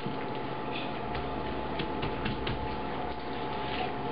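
Faint crinkles and light taps of wax paper being pressed and smoothed over freshly glued paper cutouts, over a steady room hum.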